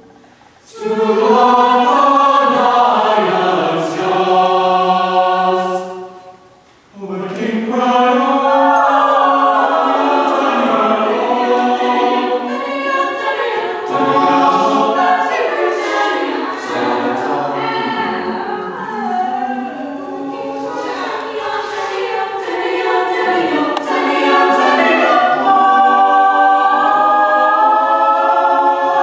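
Chamber choir singing in full harmony, with two short breaks between phrases near the start.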